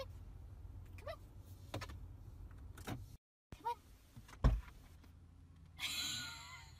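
Low steady rumble inside a car cabin, with a few short, faint squeaky glides, a sharp thump a little past halfway, and a brief rushing noise near the end.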